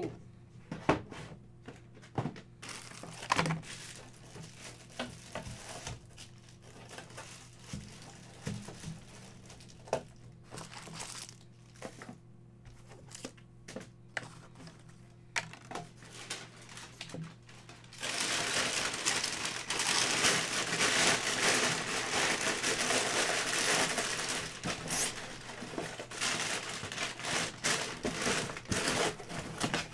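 Scattered light taps and rustles, then, about two-thirds of the way in, continuous crumpling and rustling of brown kraft packing paper as a hand digs through it inside a cardboard box.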